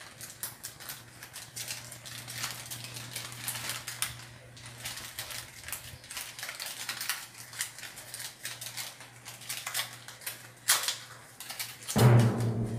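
Aluminium foil crinkling and crackling as it is peeled open by hand, a rapid, irregular run of small crackles, over a faint low hum. Near the end a louder low hum comes in.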